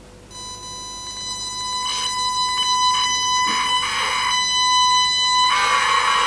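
RC4WD Bobcat R350 1:14 hydraulic compact track loader running on its electric motors: a steady, high buzzing whine that cuts in just after the start and grows louder, with patches of hiss coming and going.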